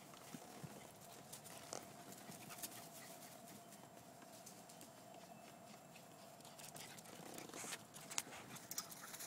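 Very faint scattered taps and light thumps, busier toward the end, over a faint steady hum.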